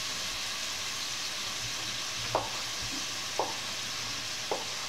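Chanterelle mushrooms frying in melted butter in a skillet, a steady sizzle. Over it, three short knife strokes on a cutting board about a second apart as chicken of the woods mushroom is cut into squares.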